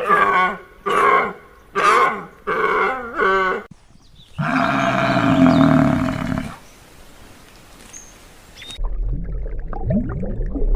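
Animal calls: a quick run of about five short calls, then one long, loud, low call lasting about two seconds. About two-thirds of the way through, the sound switches abruptly to a low rumble with scattered animal sounds.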